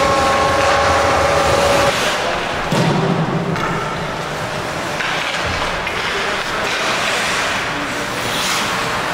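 Ice hockey game in play on an indoor rink: skates scraping the ice and sticks clattering amid arena noise. A steady held tone sounds for about the first two seconds, then cuts off.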